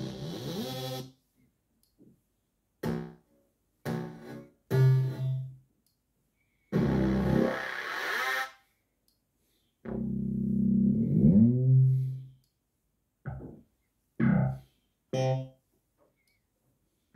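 Korg Kaossilator Pro+ synthesizer bass presets played from the touch pad, stepping from one bass program to the next: about eight short bass notes and phrases with silences between them. A longer phrase near the middle slides in pitch.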